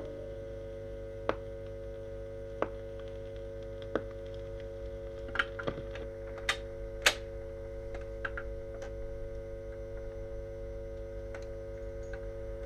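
Record player stylus riding the run-out groove of a 45 rpm single after the song has ended: a sharp click about every 1.3 seconds, once per turn of the record, over a steady hum. A few louder, irregular clicks come around the middle.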